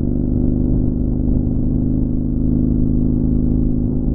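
Motorcycle engine running at a steady highway cruising speed, its pitch holding even.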